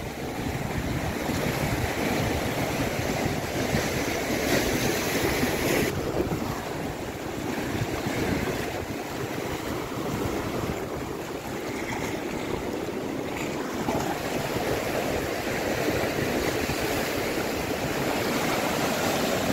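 Sea surf breaking and washing around coastal rocks, a steady continuous rush of water, with wind buffeting the microphone.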